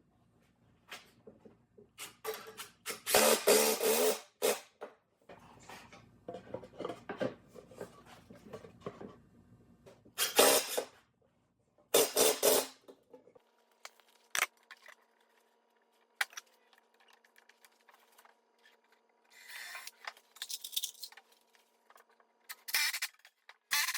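Wood being worked by hand: irregular scraping and rubbing strokes with scattered knocks and clicks, the loudest scrapes in the first half. About halfway through, a faint steady hum starts and runs under the quieter scraping until near the end.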